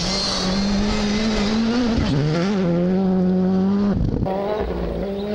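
Rally car engine running hard at high revs on a gravel stage, steady with brief dips in revs about two and four seconds in.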